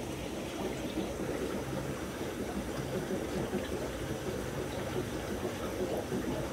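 Aquarium filter running: a steady low bubbling and trickling of water in the tank.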